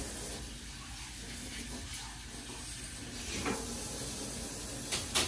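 A steady hiss of background noise, with two short sharp clicks near the end.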